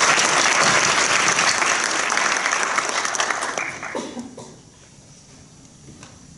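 Audience applauding in a hall, dying away about four seconds in.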